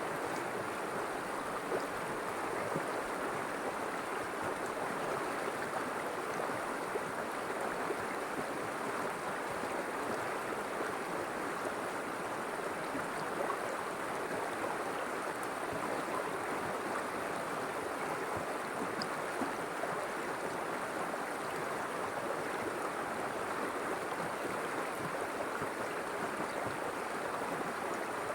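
River water flowing over rocks in a steady, even rush.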